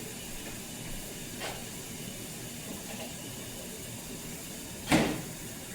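A microwave door is opened with a faint click about a second and a half in, then shut with a loud clunk near the end, over a steady hiss.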